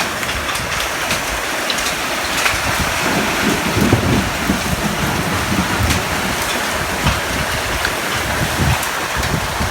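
Heavy rain and hail pelting down, a dense steady hiss dotted with sharp ticks of hailstones striking. A low rumble swells in from about three seconds in.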